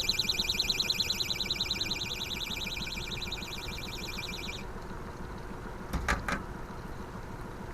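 An electronic alarm beeping rapidly, about ten beeps a second, that cuts off suddenly a little over halfway through. A couple of short knocks follow over a steady low rumble.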